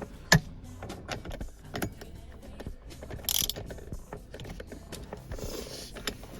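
A 10 mm socket wrench tightening the bolts that hold an aftermarket shift knob on the shifter: scattered metallic clicks and taps, the sharpest about a third of a second in, with a couple of brief rustles.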